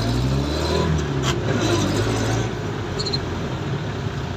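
Jeepney engine running, heard from inside the crowded passenger cabin; its low hum shifts slightly in pitch in the first couple of seconds, then settles.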